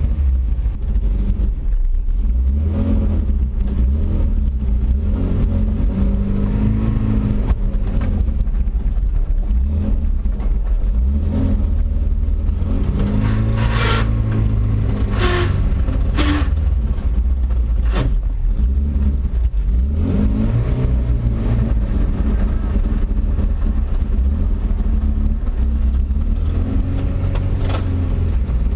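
Engine of a 1982 Toyota Hilux pickup running as the truck is driven, its pitch rising and falling as it pulls and eases off. Three short sharp clicks or knocks come a little past halfway.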